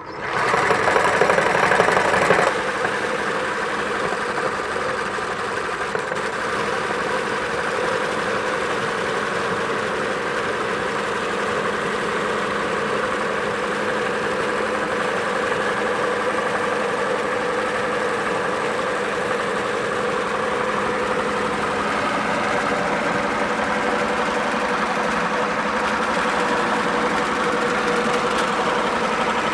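Motor-driven meat grinder running steadily, crushing crunchy corn puff sticks into fine powder. It starts abruptly and is louder for the first couple of seconds, then settles into an even hum.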